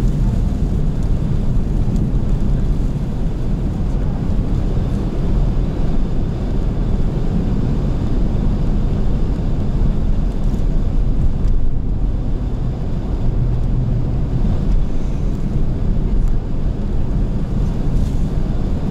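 Car driving on a snow-swept road in a strong wind: steady low rumble of engine and tyres mixed with wind noise.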